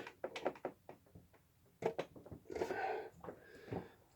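A few light clicks and knocks in the first two seconds, then soft rustling, as of small objects being handled on a workbench.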